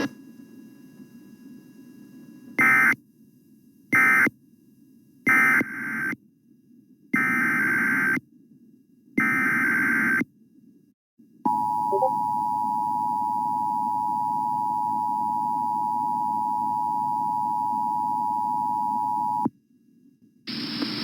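Emergency Alert System signalling: a run of short digital SAME code bursts, the last two longer, then the two-tone EAS attention signal held steady for about eight seconds before cutting off. A faint low hiss lies underneath.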